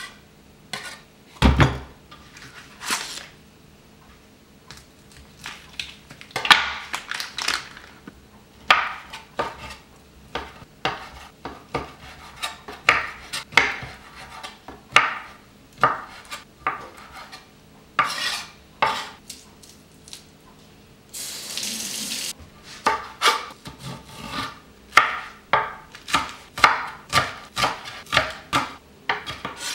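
Chef's knife chopping on a wooden cutting board, one cut at a time through onion and meat, then quicker chopping of green onions near the end. A heavy knock comes about a second and a half in, and a scrape of about a second across the board about two-thirds of the way through.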